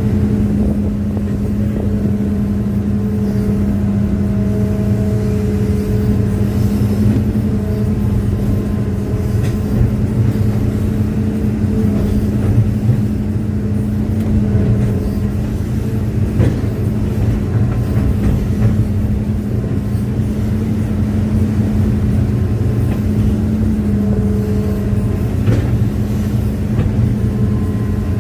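Hitachi hydraulic excavator's diesel engine running steadily with a constant low drone, with a few faint knocks.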